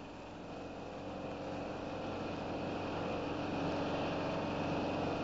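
Unimog engine running steadily while driving a shoulder milling machine, growing gradually louder.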